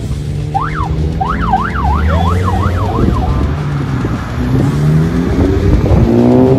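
A siren-like tone sweeping up and down over car engine noise for the first few seconds, its sweeps getting quicker, then a car engine accelerating hard, its pitch rising and getting louder toward the end.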